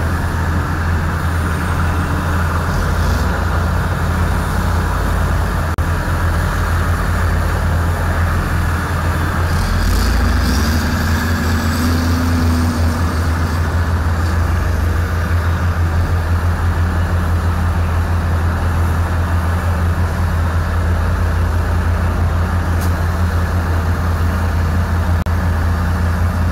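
Heavy diesel machinery running steadily with a constant low drone. A short higher-pitched sound joins it about ten seconds in.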